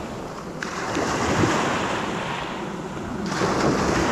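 Sea surf washing on the shore, with wind buffeting the microphone; the wash swells about a second in and again near the end.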